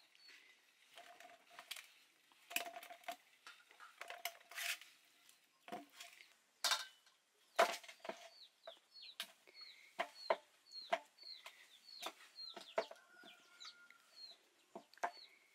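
Boiled potatoes being mashed with a steel tumbler in a steel bowl, giving irregular soft knocks and clinks. From about halfway in, a chicken cheeps in short high calls about twice a second.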